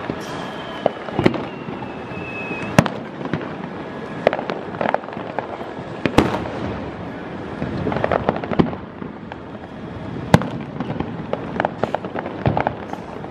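Aerial fireworks shells launching and bursting: sharp bangs every second or two, some in quick pairs, with crackling between them. A thin whistle slides slightly down in pitch through the first two seconds or so.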